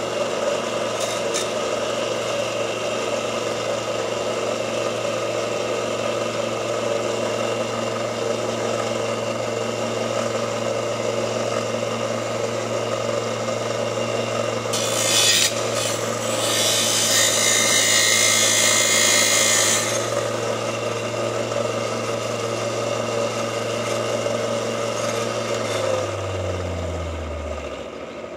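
Electric grinder running with a steady hum, with steel angle iron pressed against it twice, briefly about halfway through and then for about three seconds, each time with a loud gritty hiss. Near the end the motor is switched off and winds down, its pitch falling until it stops.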